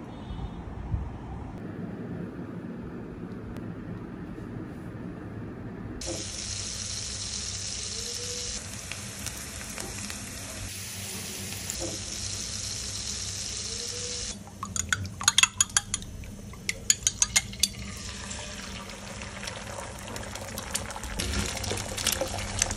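Butter frying in a hot pan: a steady sizzling hiss that starts about six seconds in, after low background noise. About halfway through comes a run of loud, sharp clicks, and near the end eggs are frying as they are stirred with a wooden spatula.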